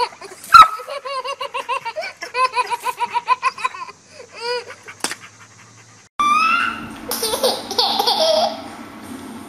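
A baby belly-laughing hysterically in quick repeated bursts, with one sharp knock just over half a second in. After a short lull, a second baby's laughter and squeals start suddenly about six seconds in, over a steady background hiss.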